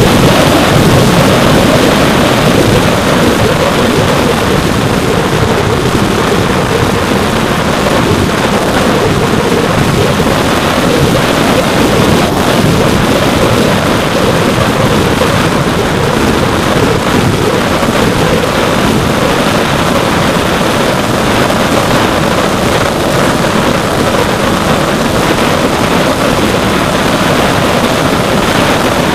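Loud, steady rush recorded by a model plane's onboard camera in flight: the Turnigy D3536 brushless outrunner motor and 8-inch propeller running under power, mixed with wind noise on the microphone.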